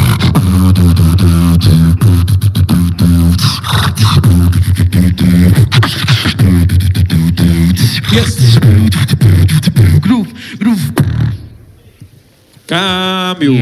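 Beatboxing into a microphone: rapid drum-like clicks and snares over a deep, pulsing vocal bass line. It stops about eleven seconds in. After a short pause, a wavering pitched vocal tone starts near the end.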